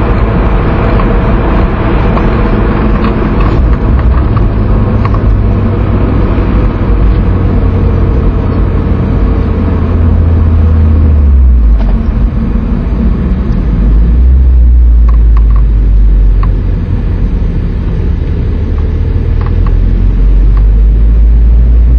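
Car engine and tyre-road noise heard from inside the cabin, a loud low drone. It eases off and picks up again a couple of times as the car slows off the circuit.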